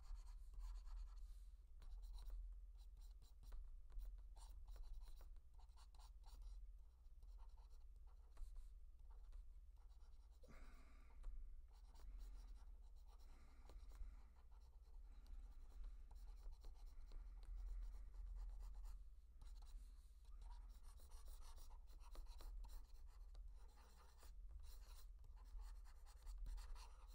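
Faint scratching of a stylus drawing quick strokes on a graphics tablet, over a steady low electrical hum.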